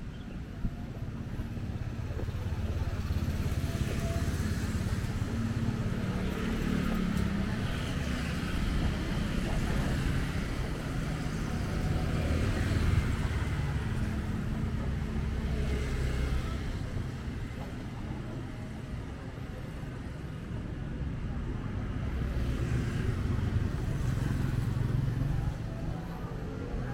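Street traffic: motor vehicles passing with a steady low engine and tyre rumble that swells and fades several times as they go by.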